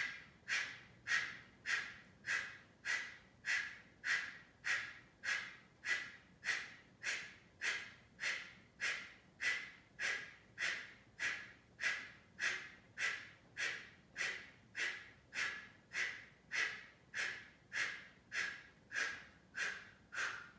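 Kapalabhati breathing: a man's forceful exhalations pulsed out through the nose, evenly spaced at a little under two a second, each a sharp puff of breath that quickly fades.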